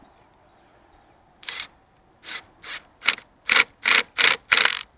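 A quarter-inch socket tool tightening a worm-drive hose clamp on a coolant reservoir hose. About eight short ratcheting strokes, which come louder and closer together in the second half.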